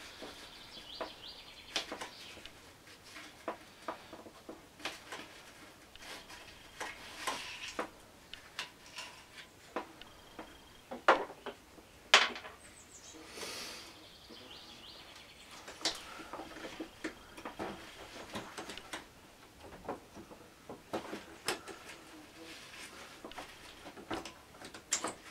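Scattered metallic clicks, clinks and knocks of hand tools and engine parts being handled at a scooter's cylinder during a cylinder-kit swap. Two sharper knocks come about eleven and twelve seconds in.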